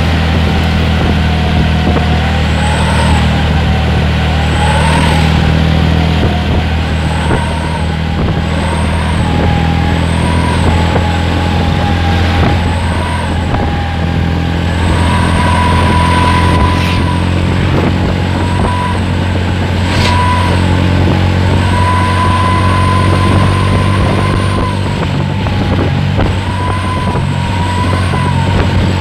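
Truck fitted with a 'srigala' (wolf) whistle exhaust, howling as it drives: a whistling tone that rises and falls with the throttle in repeated swells, held higher for a few seconds around the middle, over a steady low engine drone.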